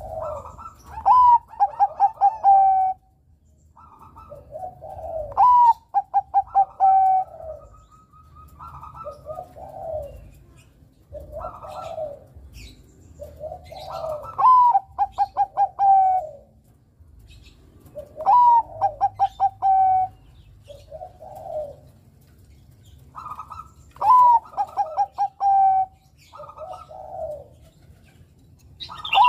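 Zebra dove (perkutut, Bangkok strain) singing its cooing song. Each phrase opens with a low coo, then a higher note and a quick run of short, evenly spaced notes, and the phrase repeats about every four to five seconds.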